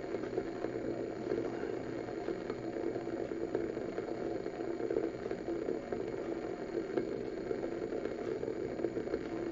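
Water in a glass beaker on a hot plate, heating just short of boiling: a steady rumbling hiss with faint cracking as vapour bubbles form at the bottom and collapse before reaching the surface. This is the sound of water that is not yet at a full rolling boil.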